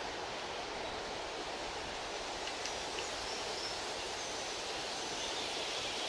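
Steady outdoor nature ambience: an even rushing noise like moving water or wind through foliage, with a few faint high short whistled notes around the middle.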